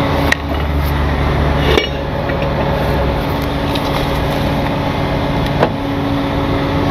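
Tow truck's hydraulic wheel lift being moved by wireless remote, the truck's engine and hydraulic pump running with a steady hum that is heavier for the first two seconds. Sharp metal clicks about a third of a second in, near two seconds and about five and a half seconds in.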